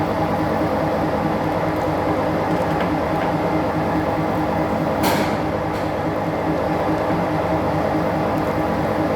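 Motor-driven workshop machinery running steadily with a constant hum, and a short hiss about five seconds in.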